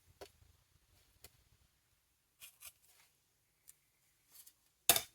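Scattered faint taps and clicks of paper, tape and small supplies being handled on a desk, ending in a sharper, louder knock near the end.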